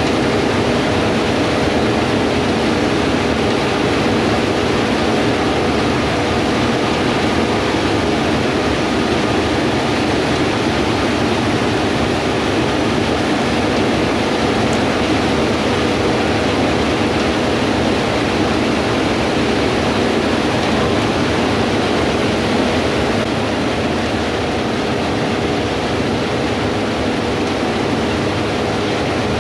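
Steady drone of large diesel farm machinery running in the field, under heavy wind noise on the microphone.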